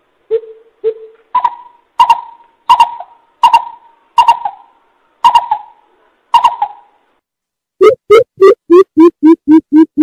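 Coucal calling in deep, hollow hoots. It starts with a few low notes, then gives a slower series of notes spaced well apart, and after a short pause near the end breaks into a fast, even run of about three or four hoots a second.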